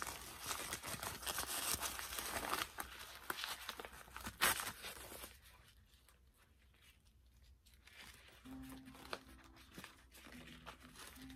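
Plastic doll packaging being crinkled and torn open by hand, dense crackling for the first five seconds with one sharp snap about four and a half seconds in, then only light, scattered rustling.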